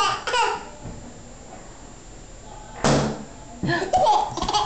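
A single sudden thump of an inflated rubber balloon being batted, about three seconds in, between bursts of a baby's laughter.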